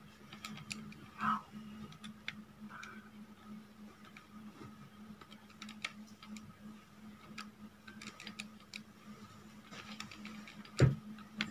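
Plastic keys of a handheld Casio scientific calculator being pressed, faint irregular clicks over a steady low hum, with a few louder taps near the end.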